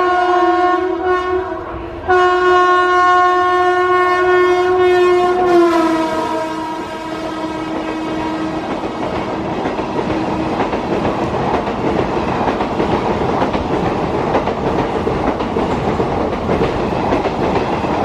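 WAP-5 electric locomotive's air horn sounding two long blasts, the second falling in pitch about five and a half seconds in as the locomotive passes and then fading. After it, the steady rumble and clickety-clack of the express coaches running past at speed.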